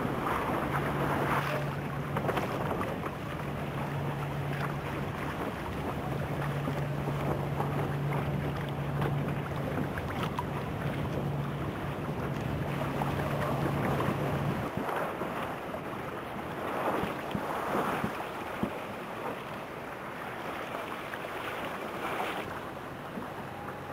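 Wind buffeting the microphone over open water, with rushing water and a steady low motor hum that cuts off suddenly about two-thirds of the way through.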